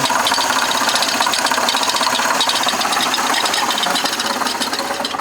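Chevrolet Impala engine idling with a fast, steady rattle from the engine bay. The rattle comes from a failing water pump, though the owner first took it for a bad timing belt.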